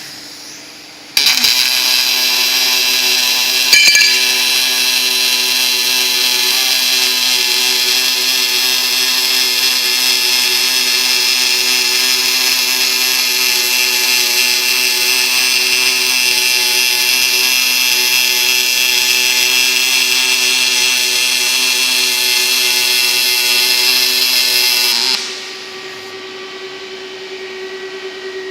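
Robotic arc welding of an aluminium bead with an OTC Daihen FD-B4 robot torch. The arc strikes about a second in and runs as a loud, steady buzz, with a brief pop near four seconds. It cuts off a few seconds before the end, leaving a steady hum from the equipment.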